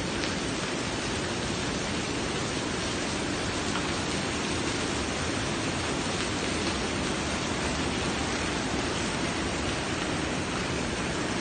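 Water pouring in thin streams down a sculpture of tiered bowls and splashing onto the bowls and pool below, a steady, even hiss like rain.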